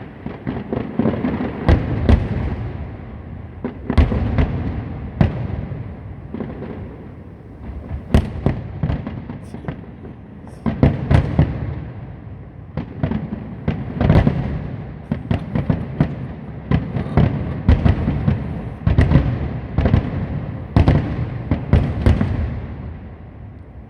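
Many fireworks going off at once: sharp bangs every fraction of a second over a continuous low rumble.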